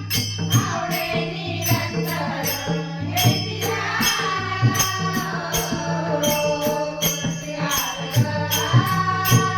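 Marathi devotional bhajan: a woman singing a flowing melody over a mridang drum and jingling percussion keeping a steady beat of about two strokes a second.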